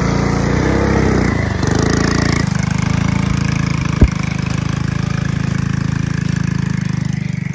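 Minibike's small single-cylinder engine running steadily under load on a steep rocky climb, with one sharp knock about four seconds in.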